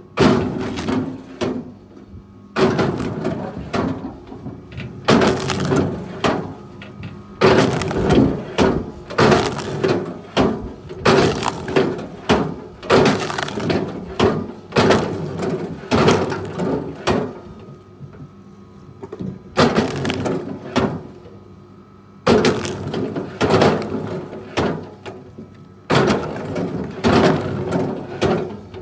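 Wood cracking and splintering as a heavy machine breaks it: loud crackling bursts of a second or two, about a dozen of them, over a steady hum.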